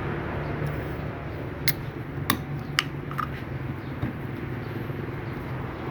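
Steady low hum of a vehicle on the move, with four short sharp clicks about two to three seconds in.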